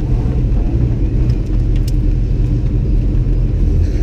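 Car engine idling with a deep, steady rumble while the car creeps forward, with a few faint clicks about a second and a half in.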